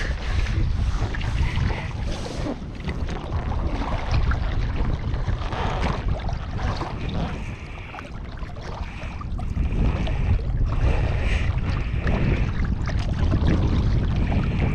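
Wind rumbling on the microphone, over the noise of water splashing around a kayak.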